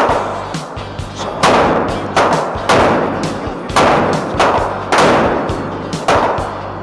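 A string of gunshots at a shooting range, about nine, half a second to a second apart, each with a ringing tail, over background music.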